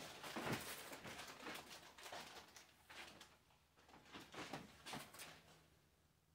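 Faint handling sounds: irregular light knocks and rustles of objects being moved about, dying away about five and a half seconds in.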